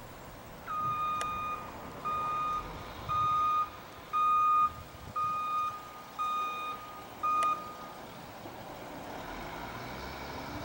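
Backup alarm of a CCC Integrated Rear Loader garbage truck beeping as the truck reverses: seven steady, evenly spaced beeps of one pitch, about one a second, stopping near the end. Engine and road noise run beneath and grow louder after the beeps stop.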